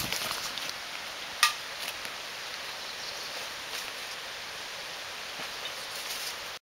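Outdoor woodland ambience: a steady, even hiss, with a few faint rustles near the start and one sharp click about a second and a half in. The sound cuts off suddenly at the end.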